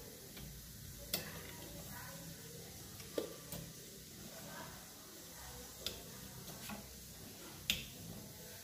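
A handful of faint, sharp clicks and taps spread over several seconds above a low hum: small parts being handled and fitted, a refrigerator compressor's new start relay and its wire connectors.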